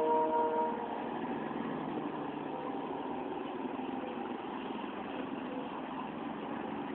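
Dogs growling as they play-fight, a continuous rough rumble.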